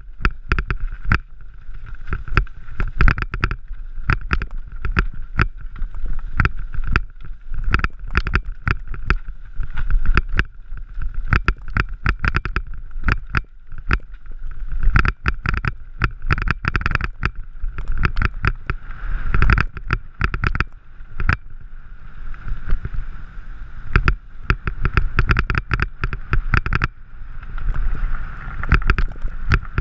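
Mountain bike clattering over a rough gravel trail: a dense, irregular run of knocks and rattles from the bike and its camera mount jolting over stones, over a steady low rumble.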